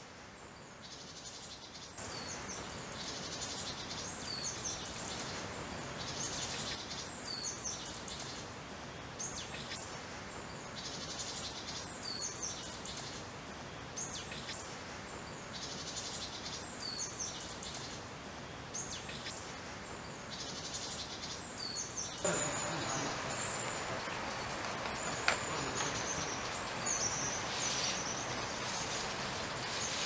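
Birds calling outdoors: short high chirps that recur about every second and a half over a steady background hiss. About two-thirds of the way through, the hiss gets louder and fuller and the chirps come higher and more scattered.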